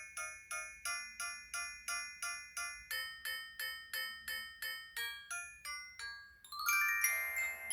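Samsung Anycall SPH-V9500 flip phone playing a bell-like ringtone of evenly repeated struck notes, about three a second. A little after six seconds in it changes to a louder, fuller chiming tune, the next ringtone.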